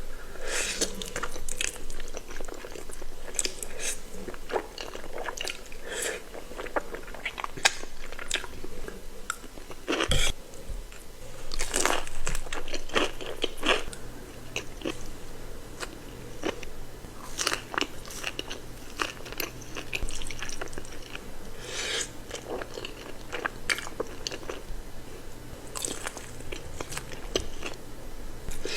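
Close-up eating sounds of crispy fried chicken: irregular crunching bites and chewing, with sharp crackles every second or two.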